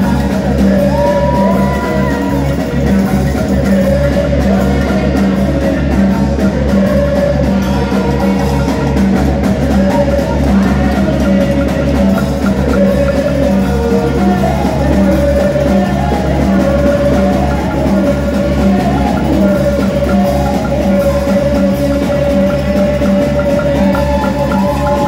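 Band music with a steady, evenly pulsing beat: drums, bass and guitar, with a wavering melody line that sounds like singing over them.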